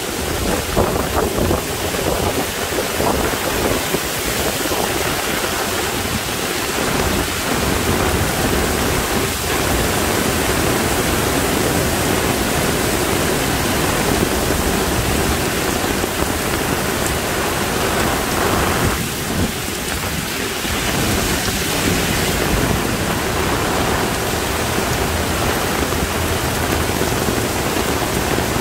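Extremely heavy monsoon rain pouring down in a loud, dense, steady hiss.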